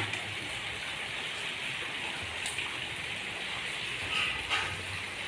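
A steady rushing hiss, with a few light knocks around the middle and later on as cardboard boxes strapped to a motorcycle rack are handled.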